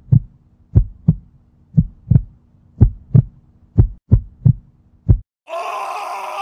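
Heartbeat sound effect: paired low lub-dub thumps about once a second over a faint low drone, stopping about five seconds in. A hissing rush of noise follows near the end.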